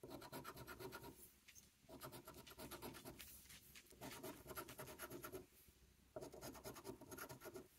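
Faint scraping of a silver coin rubbing the latex coating off a paper lottery scratch-off ticket, in short bursts of quick back-and-forth strokes with brief pauses between.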